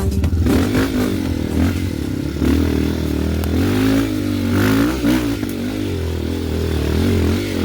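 Off-road motorcycle engine revving, its pitch rising and falling repeatedly as the throttle is worked on the trail.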